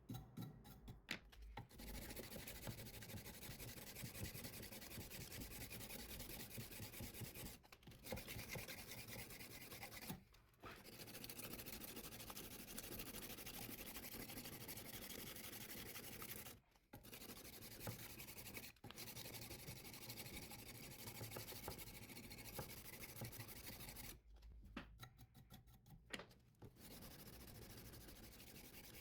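100-grit sandpaper rubbed by hand along a steel knife blade, making a faint, steady scraping sound. The sound breaks off briefly several times and goes quieter for a couple of seconds near the end.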